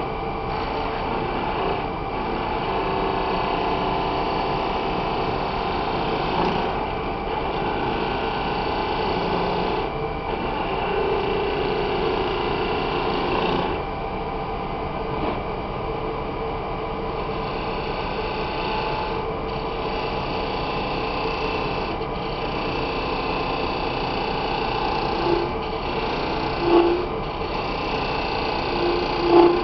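A wood lathe running steadily while a hand chisel cuts the spinning shank of a tobacco pipe, scraping off shavings. There are three brief louder sounds near the end.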